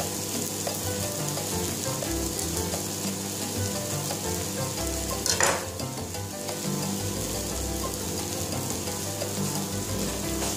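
Butter and food sizzling steadily in a hot frying pan, with a short sharp knock about five and a half seconds in.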